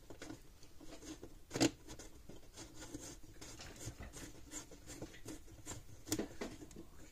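Faint small clicks and scratching of a threaded cap being turned by hand on the side of a fence charger's case. There is a sharper click about a second and a half in and another near the end.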